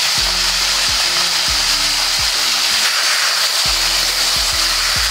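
Chopped bitter gourd frying in oil in a steel kadai, with a steady sizzle as it is stirred. Background music plays underneath.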